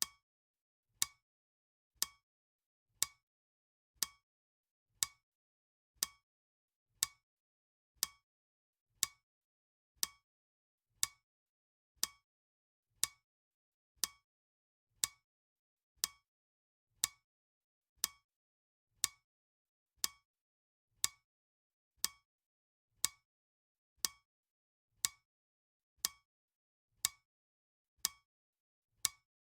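Clock ticking steadily, one sharp tick each second, with silence between ticks.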